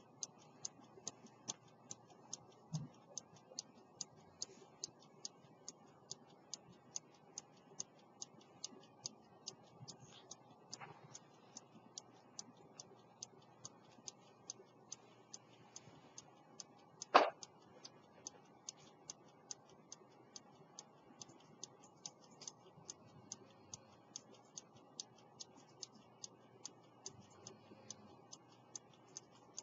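18th-century London silver fusee-chain pocket watch with a verge escapement ticking quickly and evenly, its restored movement running. A single sharp knock about halfway through.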